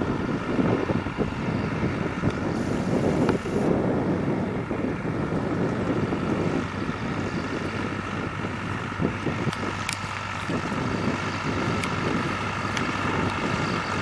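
Fendt 303 tractor's diesel engine running steadily under load while pulling a Claas Liner 2700 rotary rake through cut grass, with wind rumbling on the microphone.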